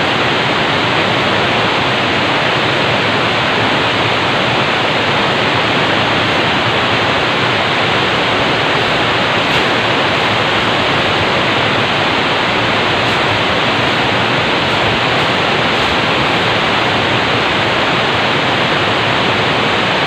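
A steady, loud rushing hiss that never changes or breaks.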